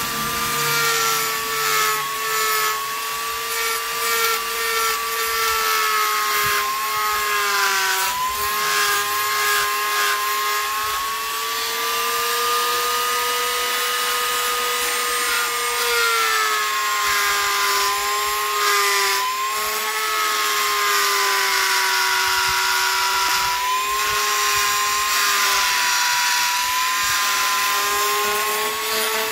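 A small bench-mounted rotary tool whines steadily while its upright bit grinds the edge of a carbon fiber plate, with a grinding hiss over the motor. The whine dips in pitch several times.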